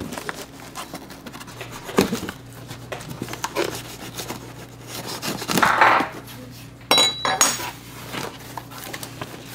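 A cardboard box being opened: a knife slitting the packing tape and the cardboard flaps pulled apart, giving irregular scrapes, taps and rustles.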